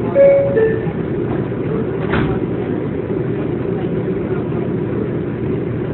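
NYC subway car's two-note descending door chime sounding as the doors close, over the steady low rumble of the elevated train. There is a short knock about two seconds in.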